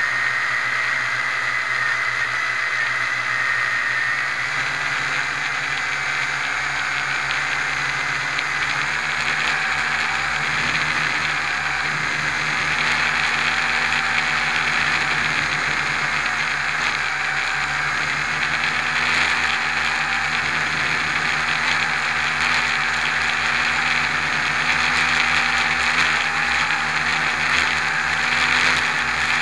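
V262 quadcopter's four motors and propellers whining steadily at high speed through a climb, as heard from the 808 camera mounted on the quadcopter, with the pitch and loudness wavering a little as the throttle changes.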